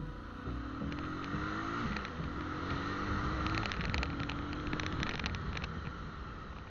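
Motorcycle engine running under way, its pitch rising and dropping back several times as the bike accelerates through the gears, with wind noise on the microphone and a few clicks around the middle.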